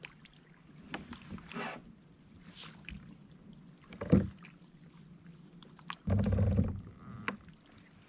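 Scattered small knocks and handling noises from gear on a fishing kayak, with one sharp thump about four seconds in and a loud, low rumbling knock lasting under a second about six seconds in.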